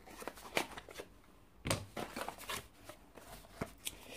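A folding knife cutting open a small cardboard box, and the box being handled open: scattered light scrapes and clicks of blade and cardboard, with one louder knock a little under halfway through.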